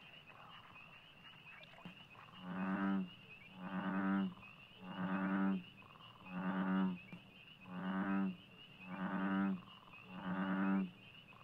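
A frog giving a series of seven deep calls, each under a second long and about one every 1.3 seconds, beginning about two seconds in. A steady high-pitched tone sounds underneath throughout.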